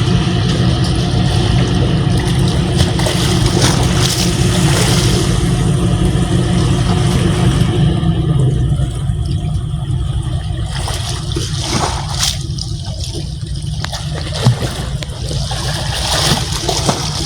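Steady low outdoor rumble of road traffic, easing a little about eight seconds in, with a single sharp knock late on.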